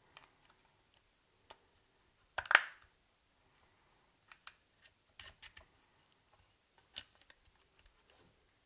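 Small plastic clicks and taps from handling a Siemens A40 mobile phone, irregular and scattered. The loudest comes about two and a half seconds in, with short runs of quick clicks in the middle and again later.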